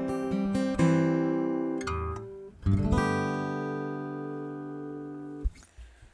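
Tagima Café CF-1000 acoustic guitar played, picked notes and strummed chords, on half-worn strings. A chord struck near the middle rings out and slowly fades before it is muted shortly before the end.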